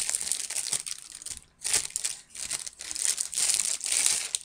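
Clear plastic wrapping crinkling as it is handled and pulled off a camera speedlight flash, in two spells with a short lull about one and a half seconds in.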